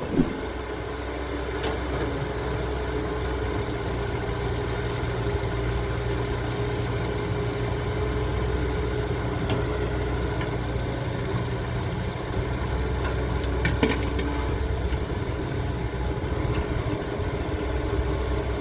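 Diesel engines of a hydraulic excavator and a loaded dump truck running steadily during excavator loading, with a short thump just after the start.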